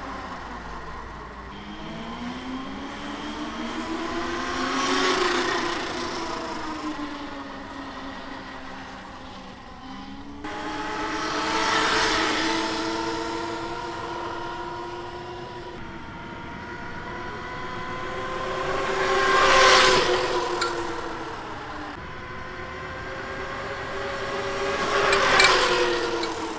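Electric minibike with a chain drive riding past four times: the electric motor's whine bends up in pitch and then down at each pass, with the drive chain clearly heard. The passes come about 5, 12, 20 and 25 seconds in, and the third is the loudest.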